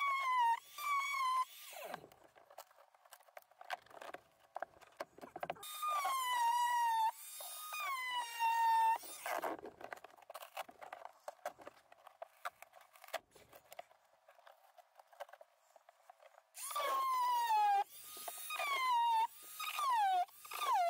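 Harbor Freight oscillating multi-tool with a wood-cutting blade cutting into a fibreglass-covered plywood boat floor. It runs in three bursts, near the start, in the middle and again near the end. Its whine keeps sagging in pitch as the blade bogs down in the material, then jumps back up.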